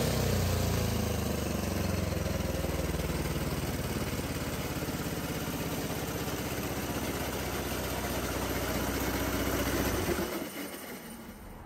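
Small single-cylinder kart engine running on a methanol and hydrogen mix, settling from a rev to a steady, even idle; it stops about ten seconds in.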